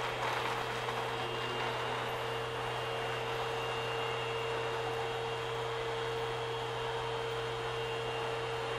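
Steady hum and hiss of an underground metro station's ventilation, with a constant low drone and a steady mid-pitched tone over it.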